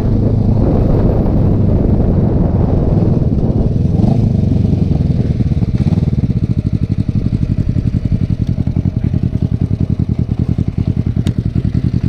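Kawasaki Vulcan 500's parallel-twin engine heard through fishtail exhaust tips with homemade silencers, running under way. From about halfway it drops to low revs with a clear, regular pulsing beat as the bike rolls to a stop.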